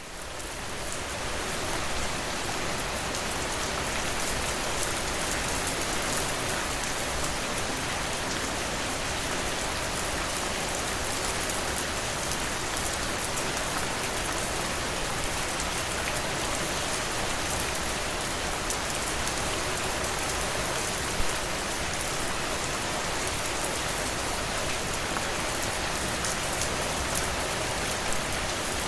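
Steady rain falling, a dense even hiss of many drops hitting a surface, fading in over the first couple of seconds.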